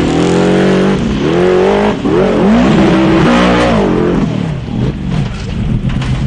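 Off-road vehicle engine revving hard, its pitch climbing and dropping several times as the throttle is worked. It eases to a lower, rougher running about four seconds in.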